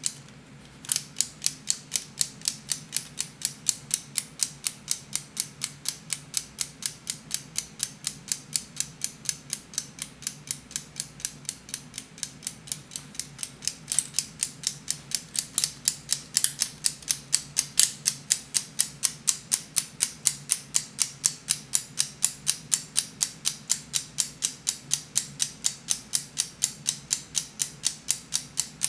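3D-printed PLA flying tourbillon's escapement ticking steadily, about four sharp plastic clicks a second, with a short pause just after the start before the ticking resumes about a second in.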